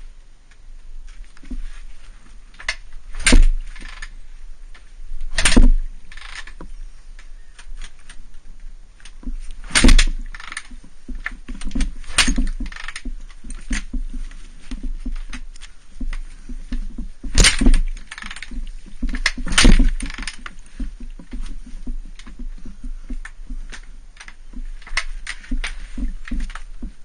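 Honda CRF250R single-cylinder four-stroke dirt bike being kick-started again and again without firing: a series of thuds from the kickstarter strokes, about five loud ones spread irregularly with smaller knocks between. No engine note catches; the uploader blames the non-start on bad 86-octane gas.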